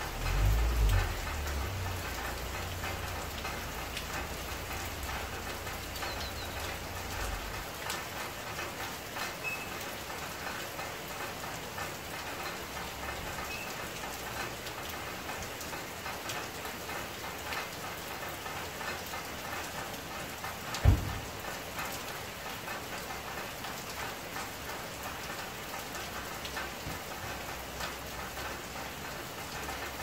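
Rain falling steadily, with many small drop ticks over an even hiss. A low rumble fades out in the first eight seconds, and a single brief low thump comes about two-thirds of the way through.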